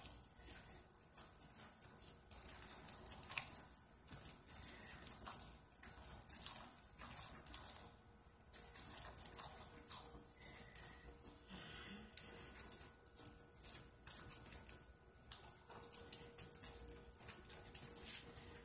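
A small spatula stirring thick hot-process soap paste in a crock pot, with faint, irregular stirring and scraping strokes as super fat is worked into the cooked soap.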